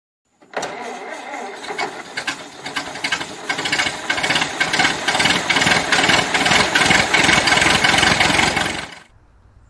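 Engine sound effect running with rapid firing pulses, growing louder over the first few seconds, then cutting off suddenly about nine seconds in.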